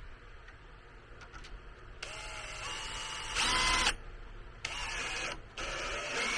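Power drill driving a screw into wood in three bursts, its motor whine rising in pitch as it speeds up, with short pauses between pulls of the trigger.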